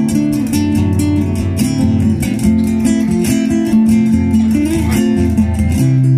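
Two acoustic guitars played together in a duet, strummed chords with picked notes in a steady rhythm.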